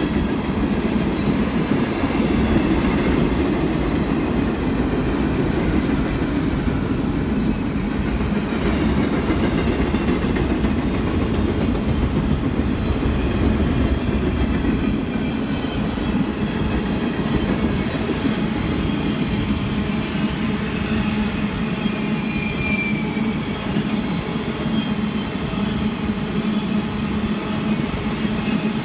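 Union Pacific freight train cars rolling past, a steady continuous rumble of steel wheels on rail.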